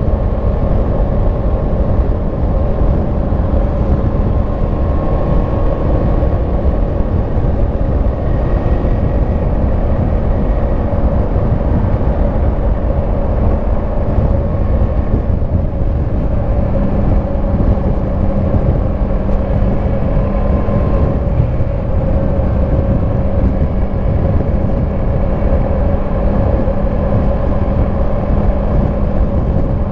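2022 Yamaha MT-10 SP's crossplane inline-four running steadily through its stock exhaust while riding, over a low rush of wind and road noise.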